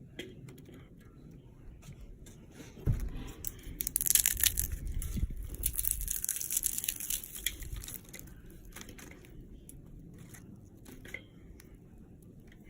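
Dry twigs and bark crunching, snapping and crinkling as they are handled for a fire, with a thump about three seconds in. From about four to eight seconds a gust of wind buffets the microphone, rumbling low and hissing loudly over the crackle.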